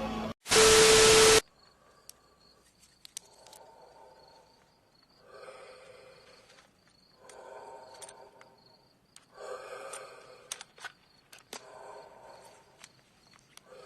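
Night ambience: a steady high insect chirp, likely crickets, under soft pitched breathing sounds that come back about every two seconds, with scattered small clicks. A brief loud burst with a steady beep-like tone comes just under a second in.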